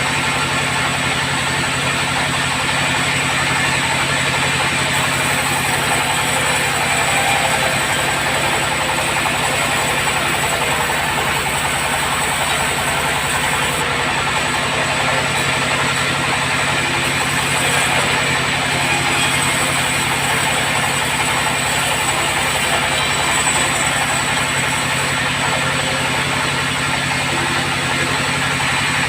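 Sawmill bandsaw running steadily: a constant machine hum with an even hiss over it, unchanging in level throughout.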